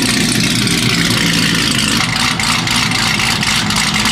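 Modified supercharged Camaro V8 running at a loud, steady idle with a choppy cam lope.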